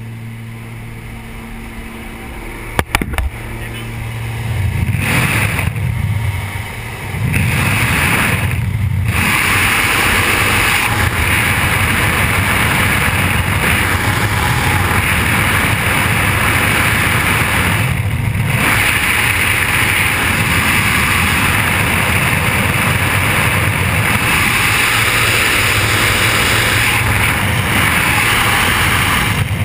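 A light jump plane's engine drones steadily in the cabin. About three seconds in there is a sharp knock, and then loud rushing wind takes over from about four seconds in, with the door open in flight. The wind noise drops away briefly a few times.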